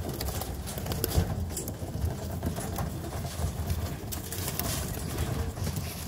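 Racing homer pigeons cooing steadily, with scattered clicks and rustles of the birds moving and flapping their wings.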